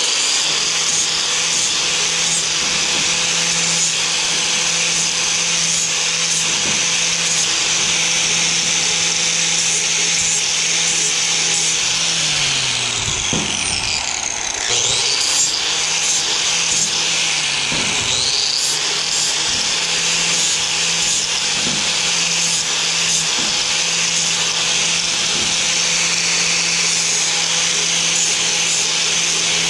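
Angle grinder running steadily while grinding and cleaning up cut square steel tubing, a motor whine under a high grinding hiss. About halfway through, the motor's pitch sags and climbs back, as it does when the tool is loaded and eased off.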